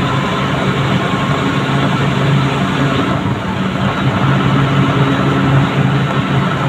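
Truck engine running steadily while the truck drives along, a low, even drone with road noise.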